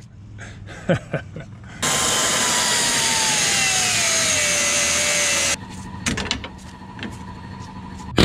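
A small hand-held cut-off grinder cutting into steel on the truck's suspension, throwing sparks. It starts about two seconds in, its whine falling steadily in pitch as the wheel bites, then stops abruptly about three and a half seconds later. Short metal knocks and clicks come before and after it.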